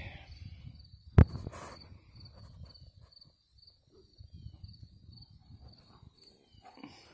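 Cricket chirping, a steady high pulsing chirp repeating about three or four times a second, over a low rumble. A single sharp knock about a second in is the loudest sound.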